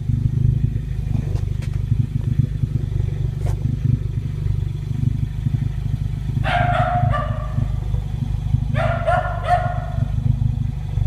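Ford Focus ST idling steadily through its Borla Pro XS exhaust, a low even drone. A dog barks in two short bursts, about halfway through and again a couple of seconds later.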